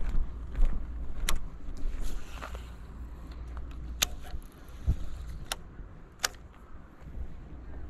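Wind buffeting the microphone as a low rumble that eases off after about three seconds. Four sharp clicks or taps are spread through it, the kind made by handling a rod and reel.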